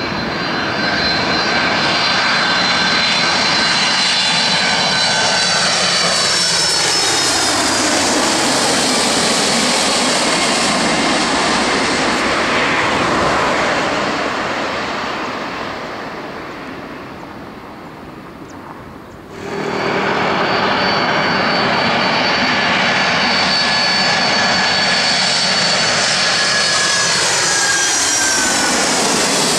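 Boeing 767 twin-engine jet airliner on final approach passing low overhead: a steady high engine whine over a loud rushing noise, the pitch sweeping down as it goes by, then the sound fading away. About two-thirds of the way through it cuts suddenly to another loud pass, whose whine also falls in pitch near the end.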